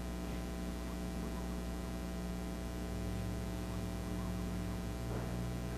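Steady electrical hum with a stack of overtones, unchanging throughout, with no other clear sound.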